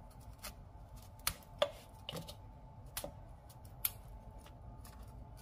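Small serrated knife cutting through raw broccoli stems to free florets, about six short, sharp cracks spread unevenly over a few seconds.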